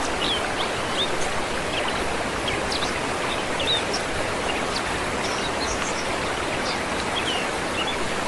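Steady rush of a forest stream and waterfall, with small birds chirping now and then over it.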